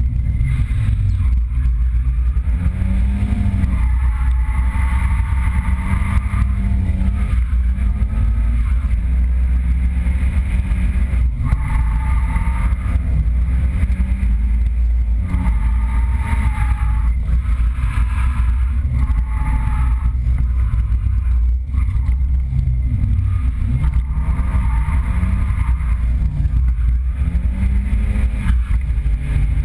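Nissan 200SX drift car's turbocharged four-cylinder engine heard from inside the cabin, revs rising and falling over and over as it is driven through drifts, over a heavy low rumble.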